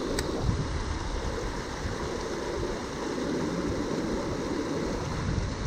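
Steady rushing of running water, with wind buffeting the microphone in an unsteady low rumble. A single small click sounds just after the start.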